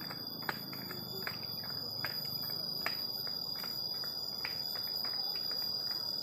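Steady high-pitched insect trill, with footsteps tapping and scuffing on an asphalt path about twice a second.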